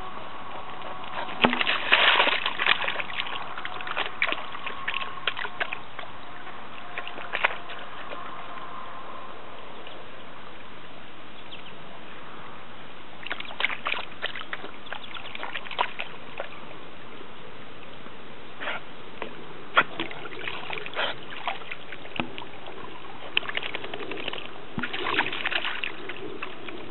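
Standard Schnauzer puppy splashing in puddles: irregular bursts of splashing and sloshing water, separated by quieter stretches. The biggest burst comes about two seconds in.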